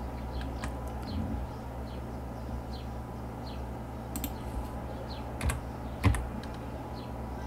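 Computer keyboard and mouse clicks: faint scattered ticks from the mouse scroll wheel, then a few sharp key presses, the loudest about six seconds in.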